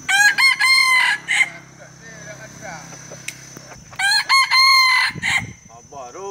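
Rooster crowing twice, about four seconds apart, each crow a loud call of about a second and a half.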